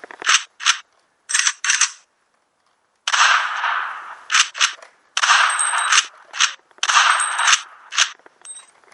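A series of gunshot-like shots in a mock gunfight. There are several short single cracks, and three longer bursts of about a second each that fade out. They are separated by abrupt dead-silent gaps, the longest about a second.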